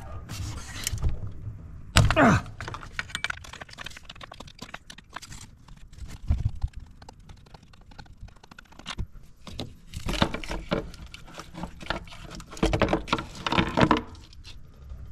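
Hand-tool and parts handling in an engine bay: scattered small metal clicks and clinks of a combination wrench on valve-cover bolts. A sharper knock comes about two seconds in, then a busier run of scraping and knocking near the end as the valve cover is worked free and lifted out.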